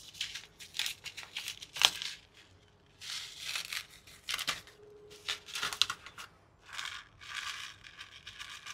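A paper seed packet being opened and handled: crinkling and rustling in a series of short bursts, with a few sharp clicks.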